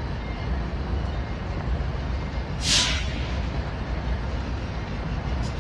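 Diesel locomotives idling in a rail yard with a steady low rumble, and a short, sharp hiss of released air about two and a half seconds in.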